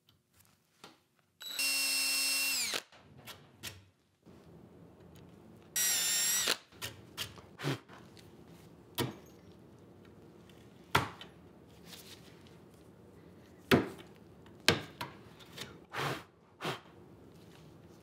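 Electric drill boring out a broken wooden dowel stub from a chair-leg joint. It runs in two short bursts: the first about a second and a half long, winding down in pitch as it stops, and a shorter one about six seconds in. After that come several irregular sharp knocks and taps.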